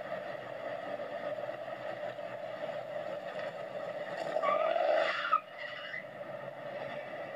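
Chevrolet V8 muscle-car engines running steadily. About four seconds in, one engine revs hard and rises in pitch for about a second, then the sound cuts off abruptly.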